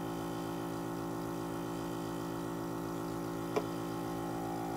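Steady hum of a small airbrush air compressor running, with a single sharp click about three and a half seconds in.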